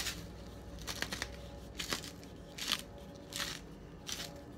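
A plastic sauce bottle being handled and turned in the hands: faint scattered rustles and light clicks, about one every half second to second.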